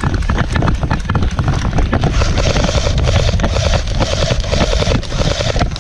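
Airsoft electric guns firing rapid strings of shots, with a steady motor whine through the heavier stretch from about two seconds in. Heavy wind rumble on the microphone runs under the shots.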